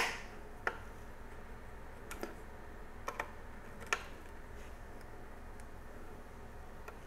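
A few faint, sharp metal clicks at irregular intervals from a Torx driver bit turning in the screws of a TR4 CPU socket retention frame as their threads are started; the sharpest comes right at the start.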